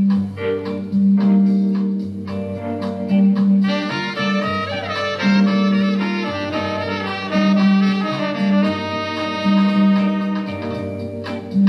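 Background jazz instrumental: a repeating bass line, with a horn melody coming in about three and a half seconds in.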